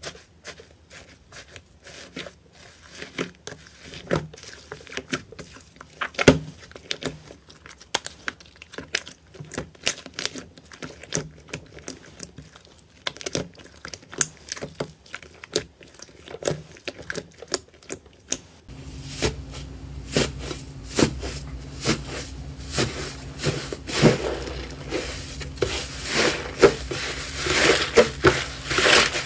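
Hands pressing and squishing slime: the dry crust of a thin-skinned iceberg slime crackles and crunches as it breaks, then the soft slime beneath squelches. About two-thirds of the way through, the sound switches to louder squishing and crunching of another slime over a steady low hum.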